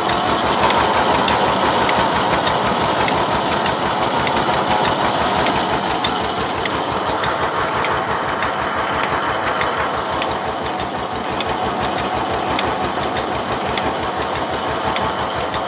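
Eicher tractor's diesel engine running steadily at constant speed, driving a borewell water pump by a flat belt from its pulley, with a fast, even run of firing pulses.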